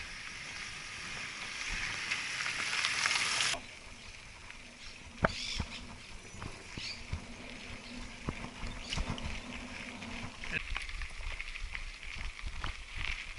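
Mountain bike ridden over a rough dirt trail: a rushing noise of wind and tyres on dirt that cuts off abruptly about three and a half seconds in, then scattered knocks and rattles of the bike jolting over ruts and stones.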